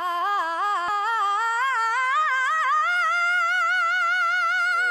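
A woman's voice singing a wordless a cappella run, climbing through quick ornamental turns and ending on a long, high held note with vibrato.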